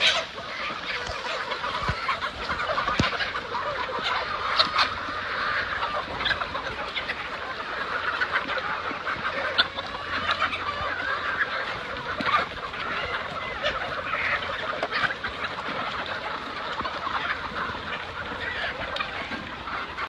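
A large flock of gamefowl chickens calling over one another: a dense, continuous chatter of many short calls and squawks.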